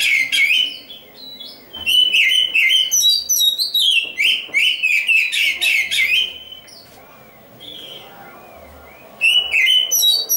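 Black-breasted oriental magpie-robin (kacer hitam) singing: loud runs of rapid, sliding whistled and chattering notes in bursts. It drops to a few soft notes for a couple of seconds about two-thirds through, then starts loud again near the end.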